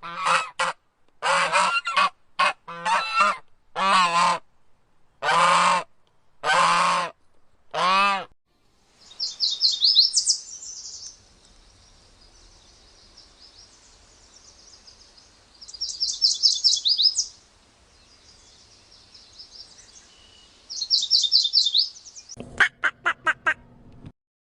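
Birds calling: a run of about nine loud honking calls, then three bursts of high, fast trilling song, then a quick string of short calls near the end.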